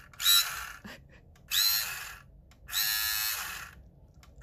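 Vintage 1978 Kenner Star Wars Laser Pistol toy's motor-driven sound mechanism buzzing in three short bursts as the trigger is pulled. Each burst opens with a quick rising whine; the last one is longer and steadier.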